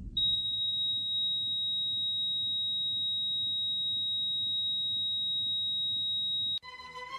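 A steady high electronic tone held for about six seconds over a faint low pulsing background, cut off suddenly near the end when a mobile phone ringtone playing orchestral classical music starts.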